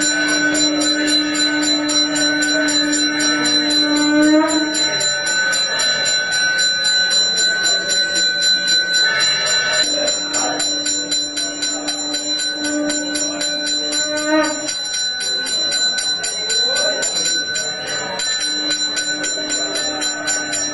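Temple hand bell rung rapidly and without a break during the aarti lamp offering, a fast even train of metallic strikes. A low steady tone is held for several seconds at a time, three times, over the bell.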